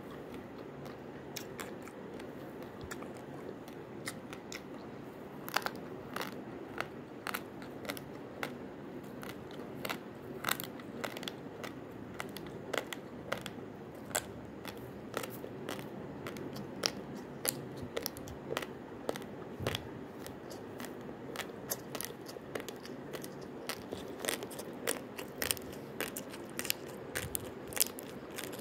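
Person chewing a mouthful of raw long-grain basmati rice: irregular crisp crunches, several a second, as the hard dry grains crack between the teeth, over a steady low hum.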